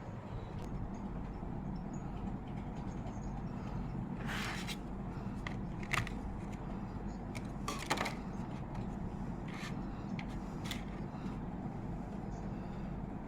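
Handling noises: a few short clicks and scrapes, the loudest near the middle, over a steady low hum.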